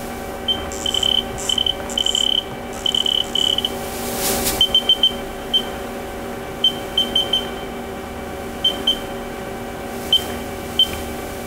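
Haas CNC control keypad beeping with each keypress, irregular clusters of short high beeps, as the lathe is keyed for a gear change into the high range. Underneath is the steady hum of the idle machine, with a brief rush of noise about four seconds in.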